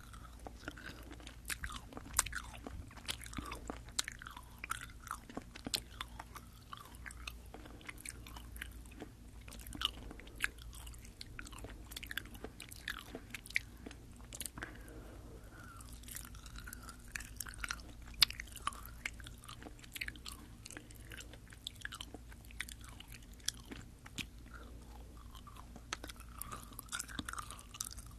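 Close-up chewing of Fini sugar-coated sour gummy candy, picked up right at the mouth by a binaural microphone: wet, sticky mouth sounds with a steady run of small clicks and smacks.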